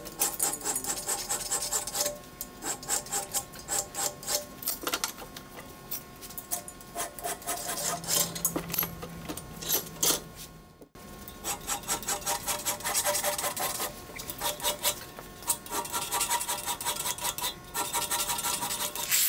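Hand file rasping in quick repeated strokes against a beryllium copper ball peen hammer head clamped in a bench vise, with a short break about eleven seconds in.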